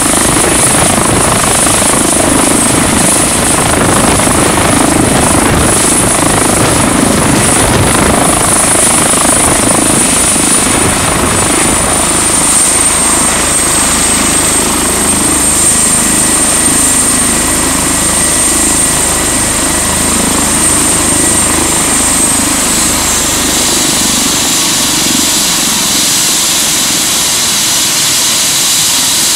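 Airbus H145 (EC145 T2) rescue helicopter running, rotor turning and twin turbines whining, as it hovers low and settles onto a trailer landing platform. The high turbine whine steps down in pitch about halfway through and again later, and the low rotor beat eases near the end as power is taken off.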